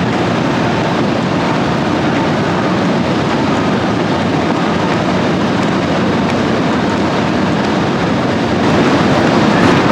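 Tractor and mechanical potato harvester running steadily, a dense, unbroken machinery noise that grows a little louder near the end.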